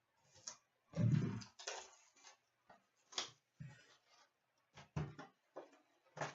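Trading-card boxes and packs being handled: irregular knocks of cardboard and short rustles of wrapping, as a new box is opened.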